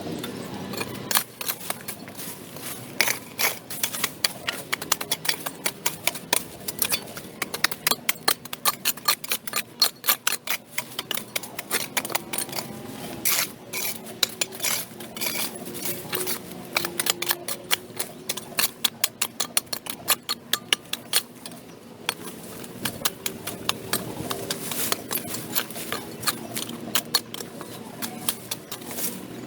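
Dense, irregular sharp clicks and taps, several a second, over a low background hiss.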